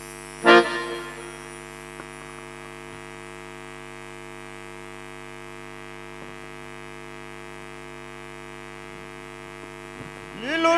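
Steady electrical hum through the stage sound system, with one brief loud sound about half a second in. A man's singing voice comes in at the very end.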